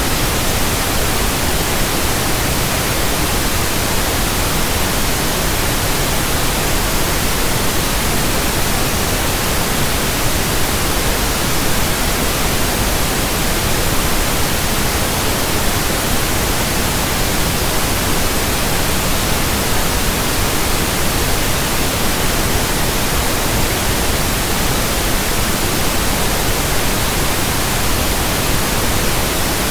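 Steady synthetic pink noise: an even, unchanging hiss across all pitches.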